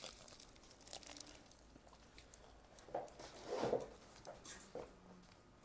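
Quiet eating sounds: soft bites and chewing of foil-wrapped shawarma wraps, with light crinkling of the aluminium foil around them.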